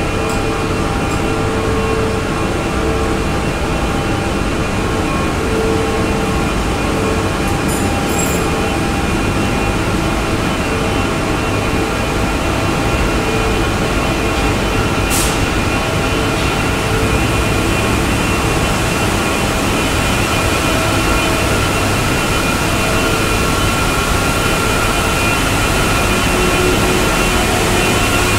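Woodworking machinery running in a workshop: a loud, steady drone of motors with several steady hums and whines on top. A single sharp tick comes about halfway through.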